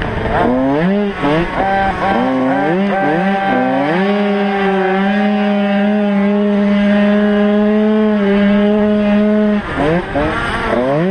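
Motocross bike's engine heard from its own onboard camera, revving up through the gears in several quick rising sweeps, then held at high revs under full throttle for about five seconds. Near the end the revs drop briefly and climb again.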